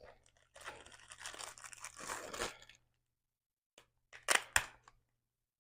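Plastic packaging being handled and torn open: a rustling for about two seconds, then two sharp crackles about four seconds in.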